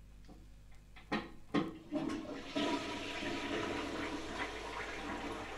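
A few sharp knocks, then a steady rush of running water.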